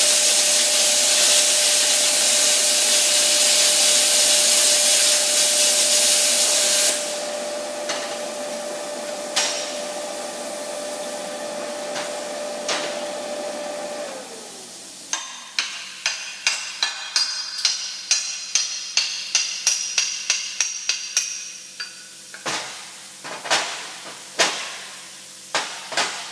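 Plasma cutter cutting 1/2 inch steel plate: loud steady hiss of the arc and air for about seven seconds. Then a quieter hiss with a steady whine that slides down in pitch and stops about fourteen seconds in. After that comes a run of sharp metallic taps and knocks, quick at first and spaced out near the end.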